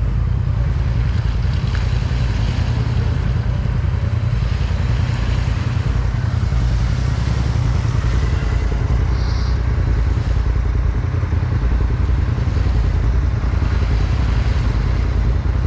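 A vehicle engine idling, a steady low rumble that holds at the same level throughout.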